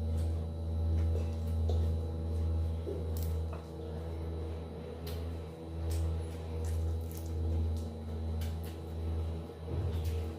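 Close-miked chewing of raw vegetables, with a few short crisp crunches, over a steady low electrical hum that swells and dips about once a second.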